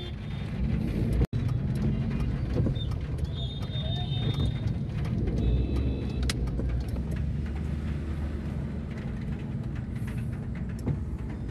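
Road traffic on a waterlogged street: a steady low rumble of vehicle engines and tyres, with short high beeps about three seconds in and again near six seconds.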